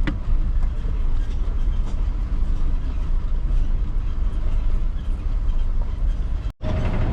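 Steady low rumble of a moving vehicle, road and engine noise; the sound cuts out completely for a split second near the end.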